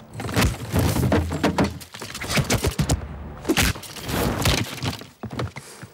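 Film fist-fight sound effects: a quick run of punches and heavy thuds of bodies hitting the floor, thinning out near the end.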